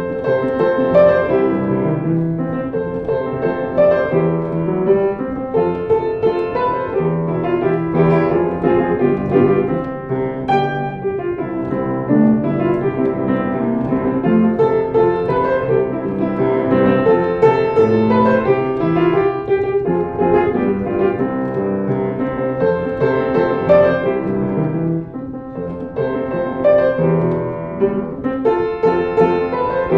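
Piano music played without a break.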